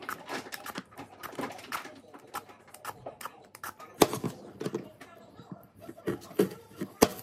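Apples being peeled and chopped by hand: scraping strokes and irregular sharp knocks of a knife on a cutting board, the loudest about four seconds in and near the end.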